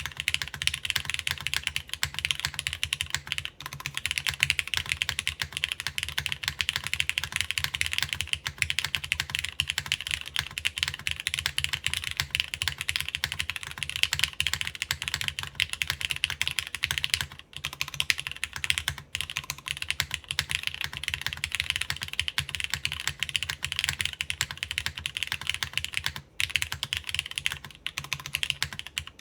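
Steady, fast typing on a Plywrks Spyder TKL mechanical keyboard, top-mounted, with lubed Cherry MX Black clear-top (Nixie) linear switches, an aluminum half plate, GMK keycaps and no case foam. The keystrokes run as a dense clatter with a low thock under each press, and the typing stops for a moment twice.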